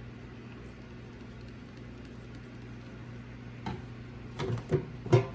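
A steady low hum, with a few short knocks and clatters of things being handled in the last second and a half.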